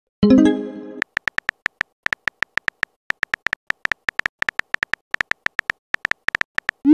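Simulated phone keyboard tap sounds from a texting-story app: a fast, even run of short electronic clicks, about five a second, as a message is typed. A short chime of several tones comes about a quarter second in, and a quick rising swoop begins right at the end.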